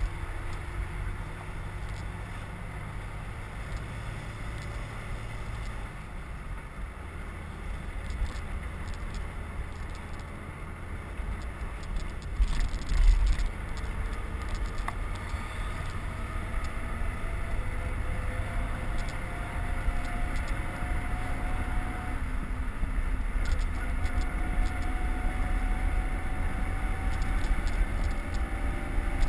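Wind rushing over the microphone of a camera on a bicycle ridden at speed, with steady low road rumble. A louder surge of rumble comes about halfway through, and faint whines rising slowly in pitch come in over the second half.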